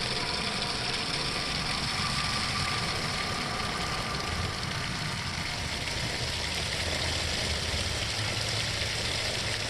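Steady rumble of freeway traffic, with a constant hiss over it; the low rumble grows a little stronger about halfway through.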